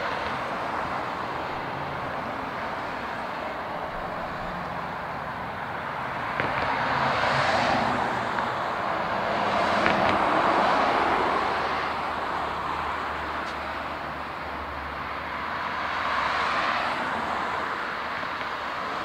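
Street traffic: cars passing one after another, their tyre and engine noise swelling and fading three times over a steady traffic hum.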